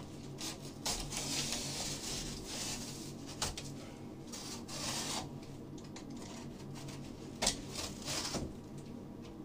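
Cardboard packaging rustling and scraping as it is handled and pulled apart, with a few sharp knocks.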